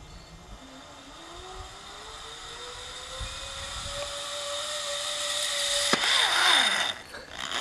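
Zipline trolley's pulley wheels rolling down the cable: a whirring whine that rises in pitch and grows louder as the rider picks up speed. About six seconds in there is a sharp click, then a rushing noise and a whine that drops in pitch as the trolley passes close by.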